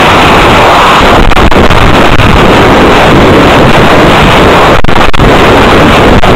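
Constant loud wind rush buffeting the microphone of a model rocket's on-board camera as the rocket coasts past apogee and falls back through the air.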